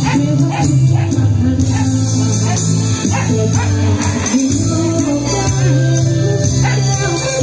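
A woman singing a Thai devotional song into a microphone, with instrumental accompaniment holding steady bass notes underneath.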